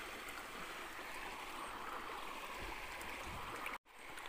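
River water running steadily. Everything drops out for a split second near the end.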